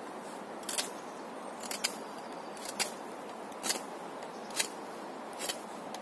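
Leatherman Wave multi-tool's knife blade carving a piece of wood: short, crisp cutting strokes about once a second.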